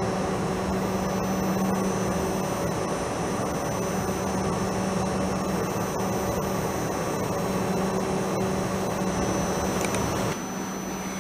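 A standing Class 458 electric multiple unit humming steadily at the platform, its onboard auxiliary equipment running with a steady low tone. About ten seconds in the sound drops to a quieter hum.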